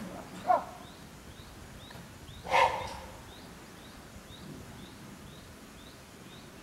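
Two short animal calls, a brief one about half a second in and a louder one about two and a half seconds in, over a faint high chirp repeating steadily a few times a second.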